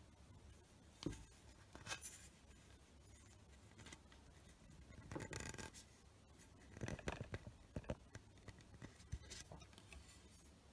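Faint handling noises from a vinyl-wrapped tennis racket frame being turned in the hands: a couple of light clicks, a scratchy rub about five seconds in, then a run of small clicks and knocks.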